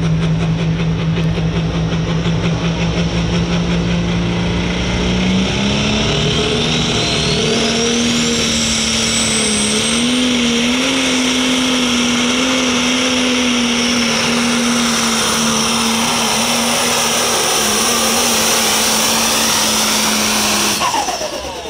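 Pro stock pulling tractor's diesel engine running flat out under load. Its note steps up in pitch about five seconds in and wavers while held, and a high whine rises steeply a few seconds later. The engine note stops about a second before the end.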